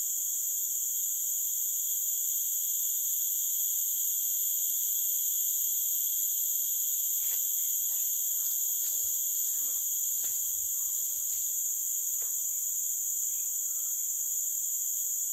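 Steady, high-pitched chorus of forest insects buzzing without a break, with a few faint ticks in the second half.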